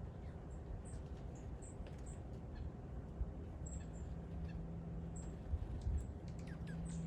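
Several birds calling outdoors: many short, high chirps and a few falling calls, over a steady low rumble with a couple of low thumps.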